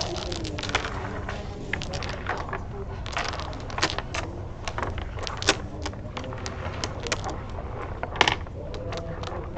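Dominoes clicking and clacking on a wooden tabletop as players draw their tiles from the pile and stand them on edge: irregular sharp clicks, the loudest about five and a half seconds in and again just after eight seconds.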